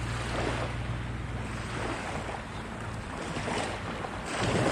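Small waves washing against a rocky shore in several surges, with wind on the microphone. A passing boat's engine drones low and steady underneath, then drops away about halfway.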